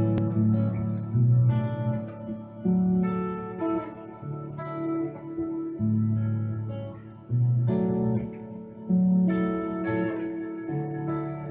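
Electric guitar with Seymour Duncan '59 humbuckers played through a clean amp tone with a lot of delay: picked chords and single notes, each struck and left to ring out and fade.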